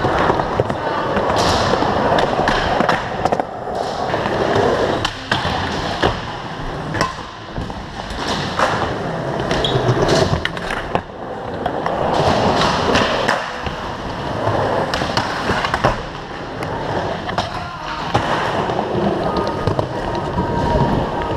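Skateboard wheels rolling over hard ground in passes that swell and fade, with irregular sharp clacks and pops of the board hitting the ground.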